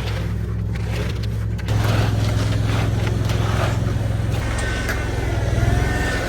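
Concrete truck's diesel engine running steadily, stepping up to a higher, louder pitch about two seconds in, with faint scrapes of concrete work over it.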